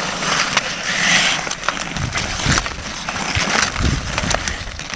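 Ice skate blades scraping and carving across outdoor pond ice during a hockey game, with sharp clacks of hockey sticks striking the puck and ice.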